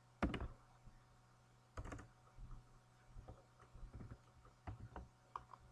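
Irregular clicks from a computer mouse and keyboard, about eight over a few seconds, the sharpest one just after the start.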